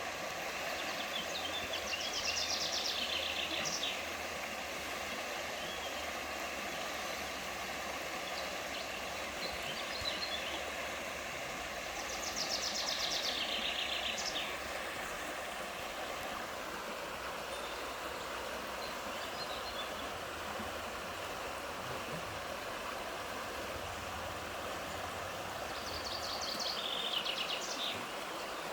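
Steady rush of a flowing stream, with a small songbird singing a short fast phrase three times, roughly every twelve seconds, each descending a little and ending in a brief flourish.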